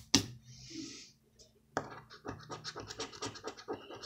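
A plastic poker chip scratching the coating off a paper scratch-off lottery ticket in quick, even strokes of about five or six a second. There is a sharp knock just at the start, and the strokes begin about two seconds in.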